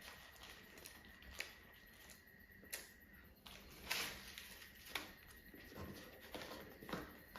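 Faint, scattered clicks and light taps, about one a second, the loudest about four seconds in: food and its packaging being handled during a meal.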